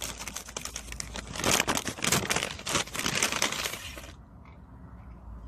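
Paper goody bag from the dentist crinkling and rustling as a hand reaches in and pulls out a packaged Oral-B toothbrush, stopping about four seconds in.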